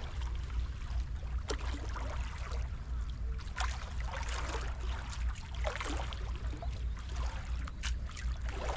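Small waves lapping and splashing against stone steps and a seawall, in irregular splashes over a steady low rumble.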